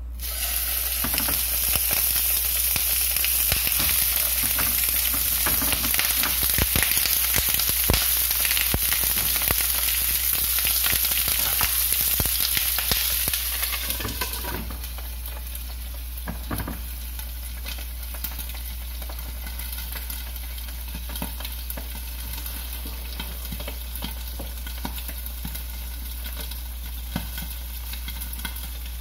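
Skinned filefish pieces sizzling and crackling in hot oil in a frying pan, starting the moment the fish goes in. About fourteen seconds in, a glass lid goes on, and the sizzle turns quieter and muffled.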